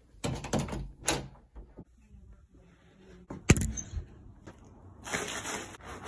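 An interior door is handled by its knob and opened, with knocks and footsteps, then a single sharp door bang about three and a half seconds in, the loudest sound. Near the end, crunching underfoot on packed snow begins.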